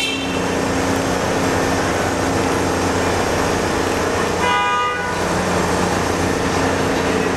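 Diesel-electric work locomotive running with a steady engine drone, giving one short toot of its horn about four and a half seconds in.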